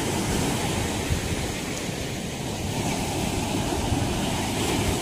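Surf breaking and washing up a sandy beach, a steady rush of waves, with wind buffeting the microphone.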